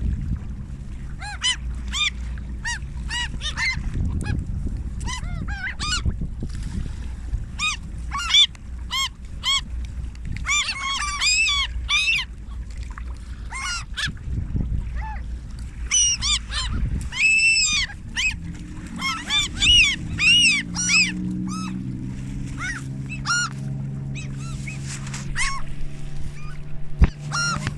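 A flock of waterbirds calling over one another while being fed, with many short, high, repeated calls. The calls are busiest in two spells near the middle. A steady low rumble runs underneath.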